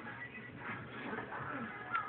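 Background music with faint voices from a television playing a film.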